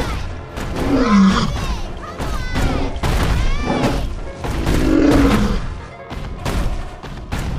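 Film action soundtrack: dramatic music over heavy booms and crashes, with the mammoth's roars sliding up and down in pitch.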